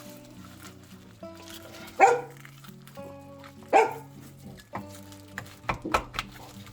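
A dog barks twice, about two seconds in and again under two seconds later, over background music; a few lighter clicks follow near the end.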